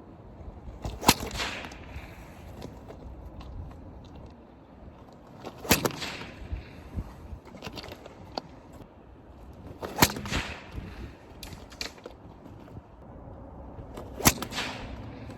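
Kevlar stone sling cracking like a whip as each stone is released, four sharp cracks about four seconds apart.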